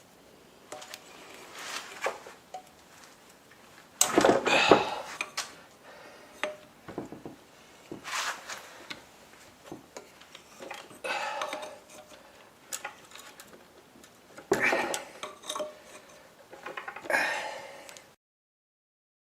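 Metal parts and tools clinking, clattering and scraping in irregular bouts as a rust-seized vertical water-cooled knife-sharpening machine is worked on. The sound cuts out abruptly near the end.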